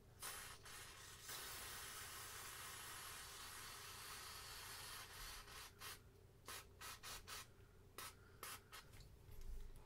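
Aerosol electronics cleaner sprayed through its thin extension straw to wash flux off small chips and connectors: a brief spurt, then a steady hiss lasting about four seconds, then several quick short spurts.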